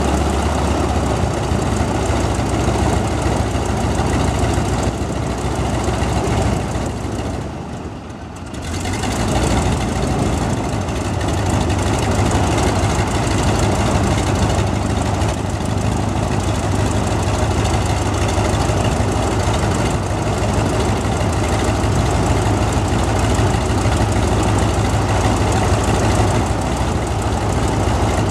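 CAC Wirraway's Pratt & Whitney R-1340 Wasp nine-cylinder radial engine and propeller running at idle, soon after starting. The sound dips briefly about eight seconds in, then picks up again and runs on steadily.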